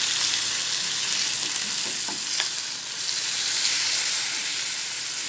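Marinated beef steaks frying in hot oil in a nonstick pan: a steady sizzle, with a couple of faint clicks as a steak is turned with plastic tongs.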